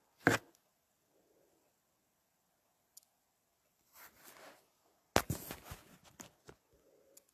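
Handling noise of the recording device: a sharp knock, a soft rustle about four seconds in, then a louder clatter of knocks and rustling about five seconds in.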